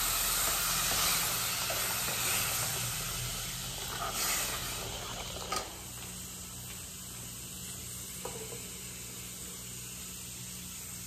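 Water from a stovetop kettle poured into a pot of rice that has been sautéed in oil, sizzling and hissing as it hits the hot pan. The hiss dies down over the first six seconds to a quieter, steady simmer, with a short knock about five and a half seconds in.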